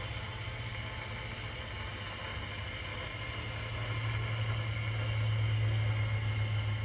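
Steady low electric hum with a faint hiss, from the motor of the rod-turning machine that holds the rod, growing a little louder about four seconds in.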